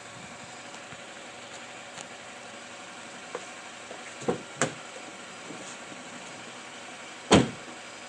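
Chevy Sonic running steadily, with a few irregular sharp knocks: a faint one a little past three seconds in, two close together about four and a half seconds in, and the loudest near the end. This is the strange noise the owner hears when pulling away and on cold starts.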